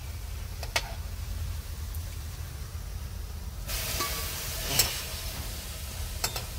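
Onion pakoras sizzling in hot oil in a steel kadhai over a steady low rumble. A steel ladle clinks lightly about a second in, the hiss grows brighter from about four seconds, and the ladle knocks sharply against a steel plate just before five seconds as the fritters are lifted out.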